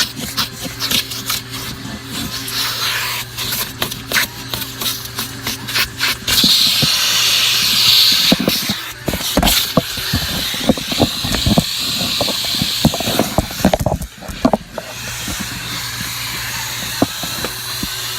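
Vacuum cleaner running with a steady hum while its nozzle knocks and scrapes over car carpet and trim. For several seconds in the middle there is a stronger rush of air.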